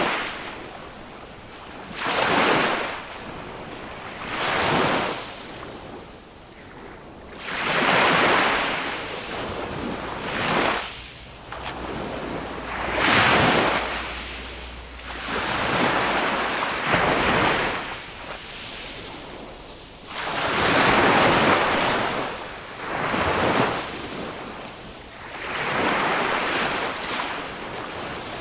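Small waves of a calm Mediterranean sea breaking on a sand beach, each one a rush of surf that swells and fades, one every two to three seconds.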